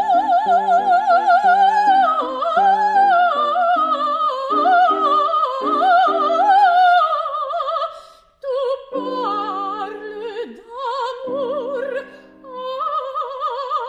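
Coloratura soprano singing an operatic aria with wide vibrato, accompanied by piano playing evenly repeated chords. The music breaks off briefly about eight seconds in, then voice and piano resume.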